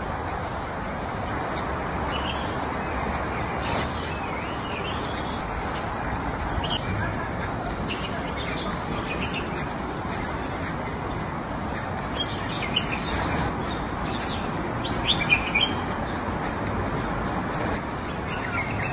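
Small birds chirping in short scattered calls over a steady background hum, with a brief flurry of louder chirps about two-thirds of the way through.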